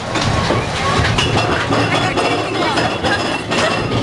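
Amusement-ride car rolling along its track, with a steady rumble and scattered clinks and rattles.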